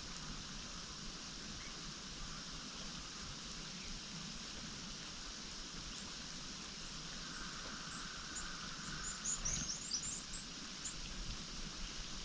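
Steady outdoor background hiss, with a small songbird giving a quick run of thin, very high-pitched calls about two-thirds of the way in.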